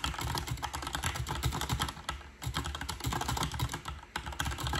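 Fast typing on a HyperX tenkeyless mechanical keyboard fitted with white replacement keycaps: a dense run of key clicks, broken by two short pauses, one a little past the middle and one near the end.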